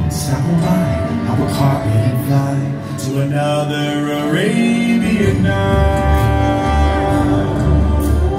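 Recorded dance music with a singing voice, played for an Arabian-themed dance routine. A heavy bass beat comes in about five seconds in.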